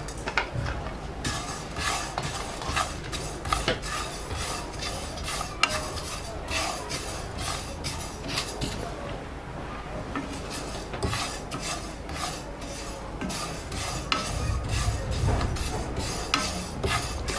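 Spatula stirring white sesame seeds as they dry-roast in a hot pan: repeated irregular scraping strokes against the pan, with a short pause about halfway through.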